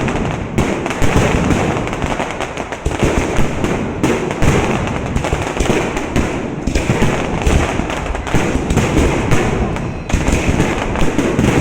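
Fireworks going off in a dense, continuous barrage of bangs and crackles, many close together.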